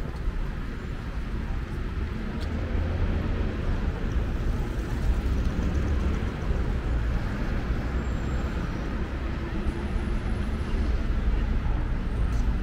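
Busy city-square street ambience: a steady low rumble of traffic with people milling about.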